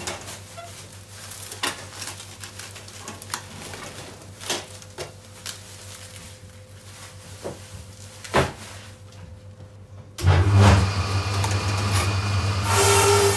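Cling film rustling and small clicks as meat trays are wrapped on a stainless steel hand wrapper. About ten seconds in, a loud, steady low machine hum starts suddenly, and it grows brighter near the end.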